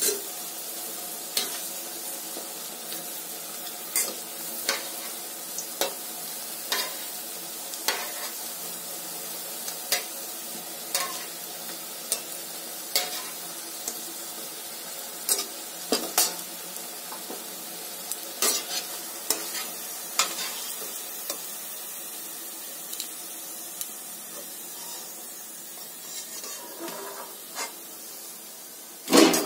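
Cabbage pakoras sizzling as they deep-fry in hot oil in a wok, with a steady hiss. A metal spatula clicks and scrapes against the pan every second or two as they are turned, and there is a louder knock just before the end.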